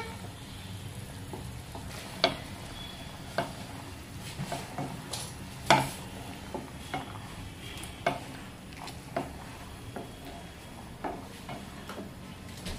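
Wooden spatula stirring pasta in a pan of boiling water, knocking and scraping against the pan every second or so, over the steady noise of the boil.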